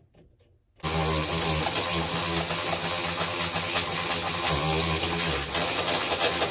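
Electric drill running under load, drilling a pilot hole through the truck's sheet-metal door panel; the motor starts about a second in, holds a steady pitch with a brief dip partway through, and stops near the end.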